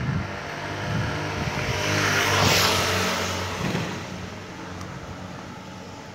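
A road vehicle driving past on the street. Its engine hum and tyre noise build to their loudest about two and a half seconds in, then fade away.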